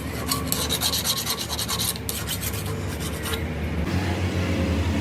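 Metal being filed or rasped: rapid, rhythmic scraping strokes on an iron workpiece, with a short break about two seconds in, stopping about three seconds in. A steady low machine hum runs beneath and grows stronger near the end.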